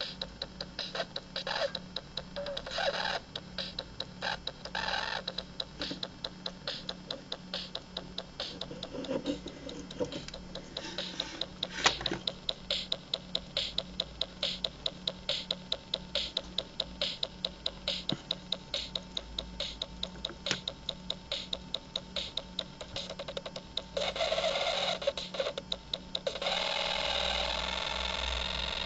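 Circuit-bent toy drum machine glitching: rapid electronic clicks, about three to four a second, over a pulsing low hum, with bursts of distorted tone between them. In the last few seconds it turns into a steady harsh buzz that cuts off abruptly.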